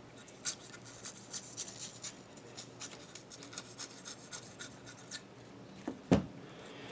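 Tape being cut and trimmed off right at the edge of a part: a run of faint, light scratching and rubbing ticks, then one sharper click about six seconds in.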